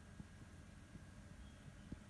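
Near silence: room tone with a faint steady low hum and a couple of tiny clicks.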